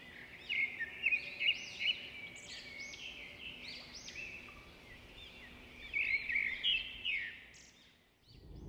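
Small birds chirping and twittering in quick runs of short rising-and-falling calls, with two bursts of calls, over a faint steady hum.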